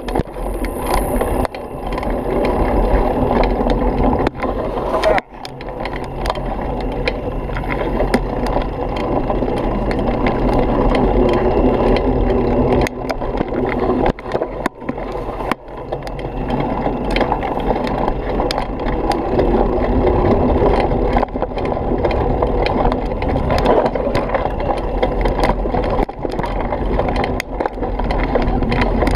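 Mountain bike rolling fast over a rough dirt singletrack: a steady rush of tyre and wind noise with constant clattering and rattling from the bike. The noise drops briefly about five seconds in and again around fifteen seconds.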